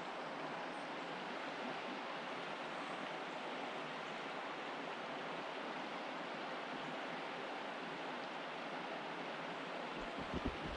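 Steady, even rush of a creek's running water. A few low thumps come near the end.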